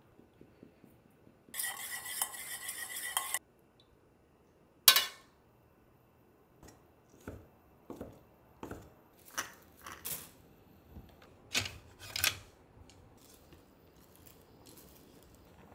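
A metal spoon stirring fast in a small stainless steel cup, a ringing scrape for about two seconds, then one sharp clink. Then a cleaver chopping on an end-grain wooden cutting board, about a dozen uneven knocks.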